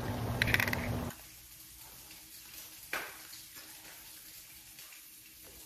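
Breaded salmon fillets frying in hot oil in a pan, a steady sizzle with a brief louder crackle about half a second in. The sizzle cuts off about a second in, leaving a quiet room with a single light knock near the middle.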